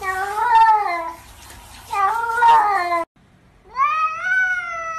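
Cats meowing: two long, wavering meows, then a brief break and a tabby cat's long meow that rises and then holds steady.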